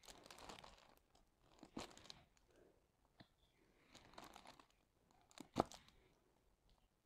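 Clear plastic protective film on a diamond painting canvas crinkling under a hand as it is smoothed and lifted, in several short rustling bursts, with one sharp click a little before the end.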